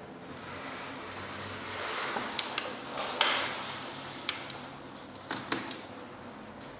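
Soft rustling with a handful of sharp light clicks and knocks, most of them between about two and six seconds in.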